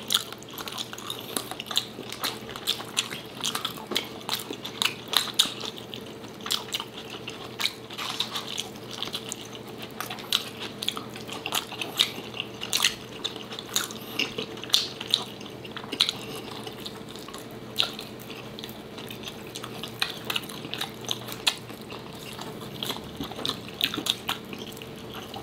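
Close-miked eating sounds of two people chewing food with their mouths closed: many short, irregular clicks over a faint steady hum.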